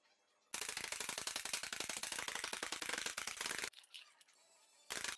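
Rapid mechanical rattling: a dense run of very quick clicks for about three seconds that starts and stops abruptly, then a brief second burst near the end.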